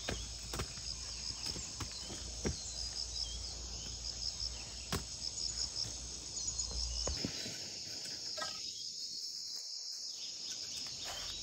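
Insects droning steadily in a high, even chorus with rows of quick chirps. Over it, in the first half, sparse footsteps of rubber boots on a rocky dirt path.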